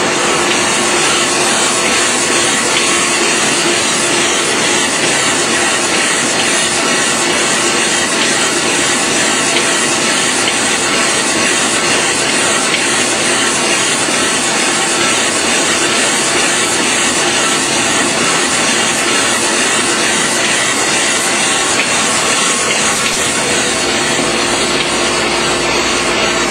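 Kase Equipment dry offset cup and pail printing machine running: a steady, dense mechanical noise with a constant hum.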